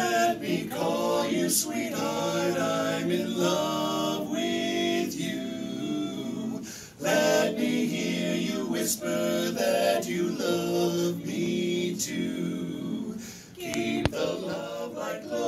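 Barbershop quartet of four men singing a cappella in four-part harmony, with two brief breaks between phrases.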